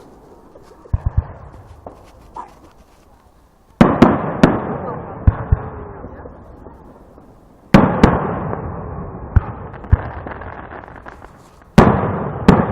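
Fireworks exploding: three big bangs about four seconds apart, each followed by a long rolling echo that fades away, with smaller pops and cracks in between.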